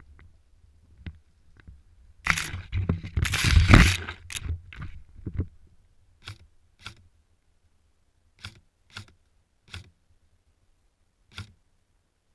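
Close rustling and crunching of movement through dry brush and leaves, then about six sharp single clicks spaced a second or so apart: an airsoft rifle fired in single shots during a flank.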